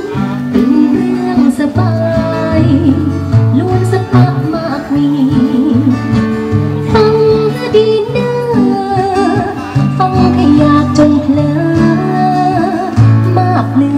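A woman singing into a microphone, accompanied by a man strumming an acoustic guitar, both amplified through a small PA speaker.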